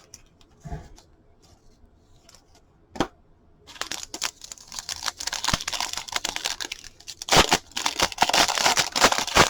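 A few faint clicks and one sharp click, then from about four seconds in a trading-card pack wrapper is torn open and crinkled, growing louder near the end.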